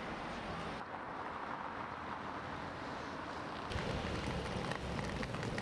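City street noise: a steady haze of road traffic. It changes abruptly about a second in and again near four seconds in, where it grows louder with more low rumble.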